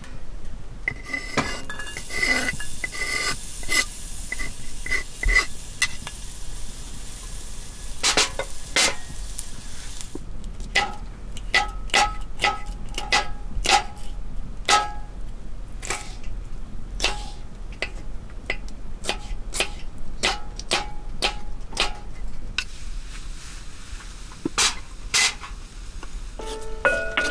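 Metal cooking utensils clinking and scraping against cookware in irregular sharp strikes, each with a short ringing tone, with a hiss in the first few seconds.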